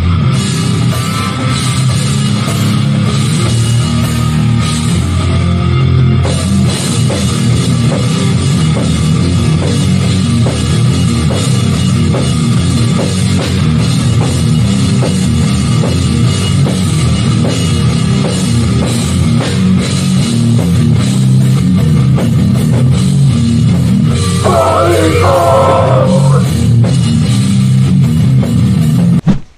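Hardcore band playing through an instrumental passage: distorted electric guitars, bass and drum kit, loud and dense, then stopping abruptly near the end.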